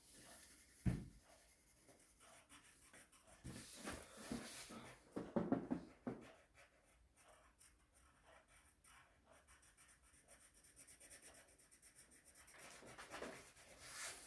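Pencil scratching on paper in shading strokes, fast and even back-and-forth through the second half. There is a single knock about a second in.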